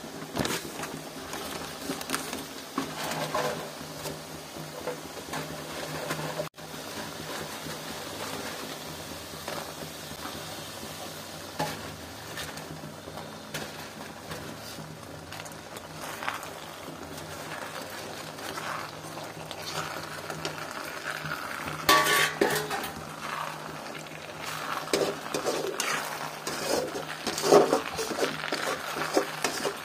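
Chicken chilli sizzling in a kadai (wok) of onion and sauce, with a metal spatula scraping and clinking against the pan as it is stirred. The scraping comes thickest about two-thirds of the way through and again near the end.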